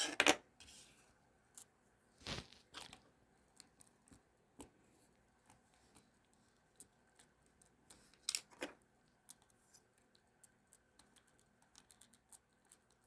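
Irregular small clicks and brief scraping rustles of hands handling the small parts of a ratcheting screwdriver's ratchet mechanism, with a few louder handling noises at the start, after about two seconds and after about eight seconds, and a quick run of tiny clicks near the end.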